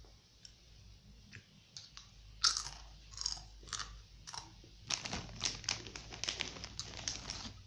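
A mouthful of crunchy rolled corn chips (a Takis imitation) being bitten and chewed close up: a few sharp cracks, then rapid, irregular crunching that grows denser about five seconds in.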